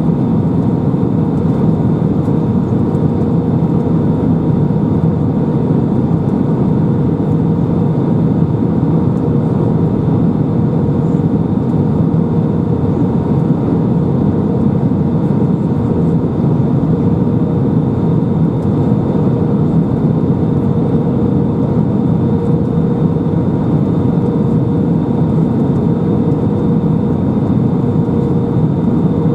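Airbus A319 airliner heard from inside the cabin: a steady, loud rush of engine and air noise with a few constant whining tones over it, unchanging throughout.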